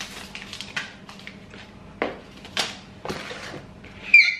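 Takeaway packaging being unwrapped and plastic food bowls handled: paper and plastic rustling and crinkling with several sharp clicks and crackles, then a short high squeak near the end, the loudest sound.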